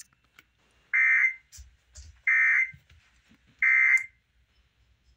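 Emergency Alert System end-of-message data bursts coming from a radio: three short, identical buzzy digital chirps about 1.3 seconds apart. They mark the end of the broadcast alert message.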